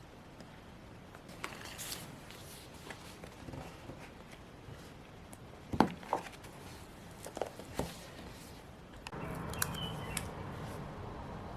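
Planner-decorating handling sounds: light rustles of paper and stickers with scattered small taps, a sharper tap about six seconds in, and steadier rustling or rubbing from about nine seconds on.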